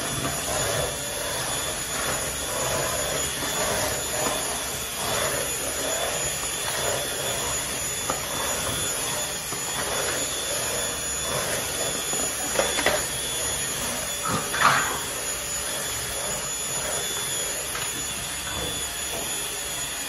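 WAP stick vacuum cleaner running steadily with a constant high whine as its floor nozzle is pushed over tile. A couple of brief, sharper sounds break in about two-thirds of the way through.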